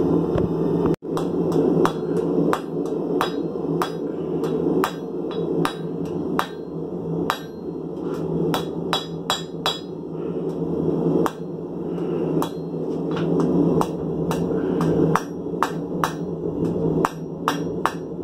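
Hammer blows on red-hot file steel held on an anvil, a run of sharp metallic strikes at about two to three a second, starting about a second in, as the file is forged into a knife blade. A steady low noise runs beneath the blows.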